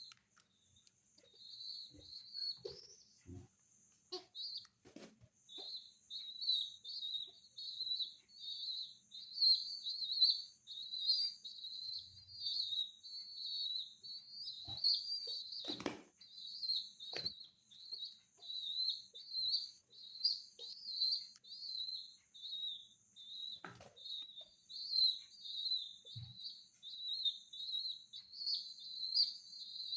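Young pigeon squab squeaking: high, wavering peeps repeated about twice a second in a near-unbroken run from about five seconds in, with a few short knocks.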